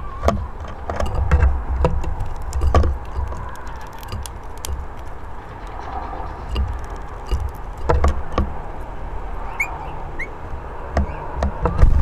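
Many short sharp clicks and taps of bullfinches feeding at a wooden bird table, over a low rumble that swells several times. Two short high chirps come about ten seconds in.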